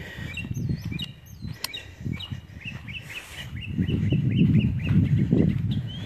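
Osprey calling: a long series of short, high whistled chirps, about three a second. A low rumbling noise comes in about halfway through and is louder than the calls.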